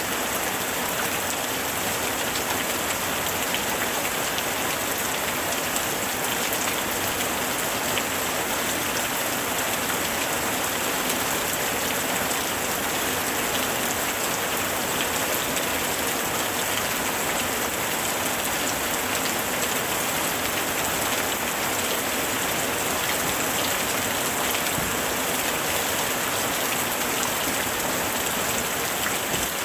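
Steady rain falling, a dense, even hiss of drops with fine individual ticks of drops striking a surface, unchanging in strength.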